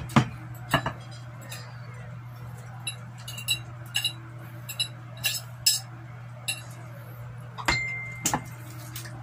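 Metal fork clinking and scraping on ceramic plates, with small scattered clicks of eating. Near the end come two louder clinks, the first ringing briefly.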